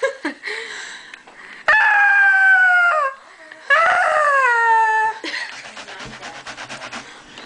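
A girl wailing in two long, high cries, each falling in pitch as it goes: a staged, mock-dramatic scream. The cries are followed by about two seconds of fast, even rasping pulses.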